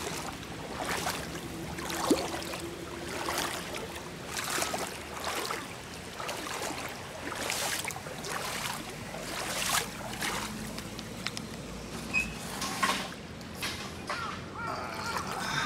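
Footsteps wading through shallow floodwater, splashing and sloshing about once a second over a faint trickle of water. A few short chirping calls near the end.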